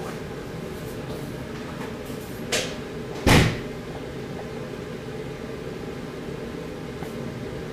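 Two knocks over a steady room hum: a light knock about two and a half seconds in, then a louder, heavier thud less than a second later.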